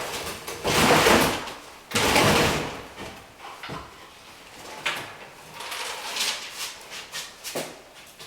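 Old kitchen cabinet being pulled loose from the wall after its screws are out, scraping and bumping. Two long scrapes come in the first three seconds, then several shorter knocks and scrapes.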